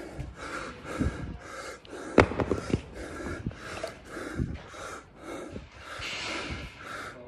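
A person breathing hard and fast through the mouth during an exercise set, in quick even puffs about three a second. There are a few sharp knocks about two seconds in.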